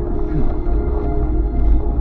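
Steady drone from inside the cab of a vehicle driving a snowy trail: held engine tones over a constant low rumble, with no change in pitch.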